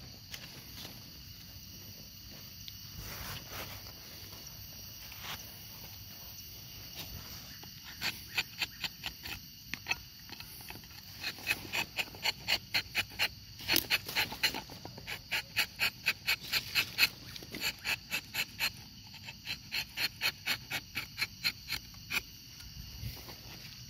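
Rubber-tapping knife shaving a thin strip of bark along the tapping cut of a rubber tree: short, sharp scrapes about three a second from about eight seconds in, over a steady high insect drone.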